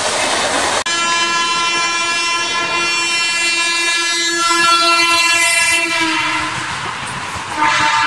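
Indian Railways train horn sounding one long, steady blast that starts about a second in, holds for around five seconds and then fades. A second blast begins near the end. Before the first blast, the rushing noise of a passing train cuts off abruptly.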